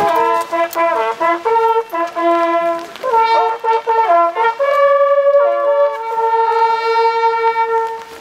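A group of hunting horns playing a fanfare in harmony, several notes sounding together in short phrases and then a long held chord that breaks off near the end. This is the traditional horn music that opens a driven hunt.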